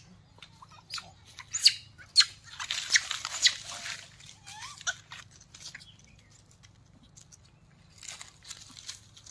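Dry fallen leaves crackling and rustling underfoot, with a few sharp clicks; the rustling is thickest about three seconds in and dies down after about four seconds.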